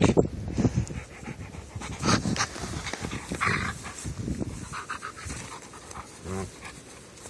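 Dog rolling and squirming on its back in dry grass, rustling and crunching the dry stems, with the dog's panting breaths.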